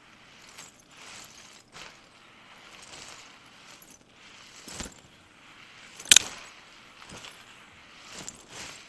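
Scattered clicks and light rustling of objects being handled, with a sharp, loud click about six seconds in.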